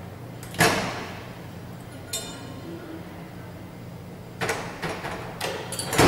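Microwave oven door shutting with a single thud, followed a few seconds later by several lighter clicks and knocks.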